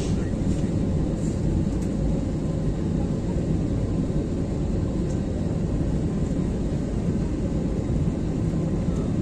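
Steady low rumble of a jet airliner's engines and airframe, heard from inside the passenger cabin while the aircraft taxis.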